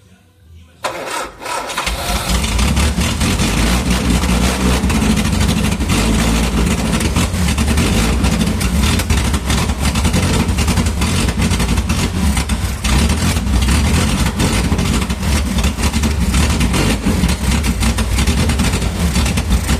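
Sunbeam Rapier's four-cylinder engine cranking and catching within the first two seconds, then running steadily and loudly with an uneven beat.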